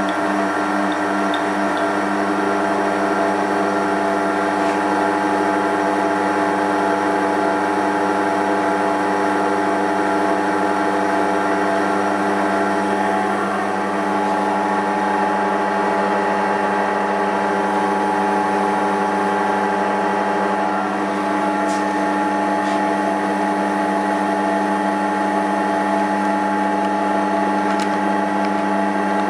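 Homemade lathe running with no load, its chuck and spindle belt-driven by an electric motor: a steady hum made of several even tones. A few faint clicks in the second half.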